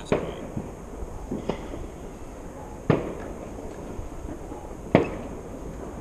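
Fireworks going off: four sharp bangs, one to two seconds apart, each trailing off briefly, over a steady low rumble.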